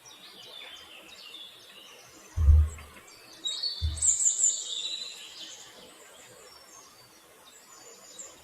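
Birds chirping and trilling, busiest a few seconds in, with two dull low thumps about a second and a half apart.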